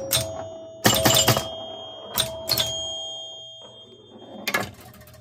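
1970 Gottlieb Batter Up electromechanical pinball machine in play: pop bumpers and solenoids snap sharply several times, some in quick clusters, and each scoring hit rings the machine's bell, whose tone fades slowly over a few seconds.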